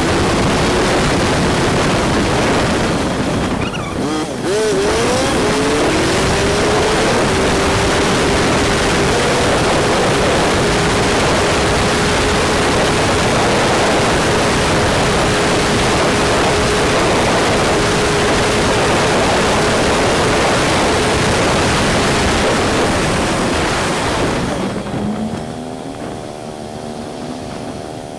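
Honda CG125's single-cylinder engine running at a steady pitch under loud wind and road rush. About four seconds in the engine note briefly dips and wavers. Near the end the wind noise falls away as the bike slows, leaving the engine's own note more plainly.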